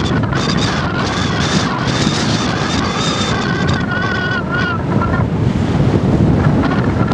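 Strong bise (cold north wind) buffeting the microphone: a loud, rushing gusty roar. A faint thin whistle wavers through it and fades out about five seconds in.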